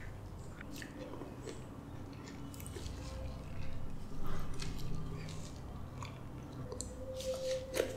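Close-miked chewing of soft, creamy custard apple flesh, with wet mouth clicks. About halfway through it gets louder as gloved fingers pull more soft flesh from the opened fruit.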